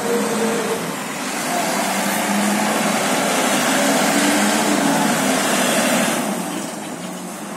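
Front-loading garbage truck's engine running at raised revs to power its lift arms, with a strong hiss over it; the noise eases off about six seconds in.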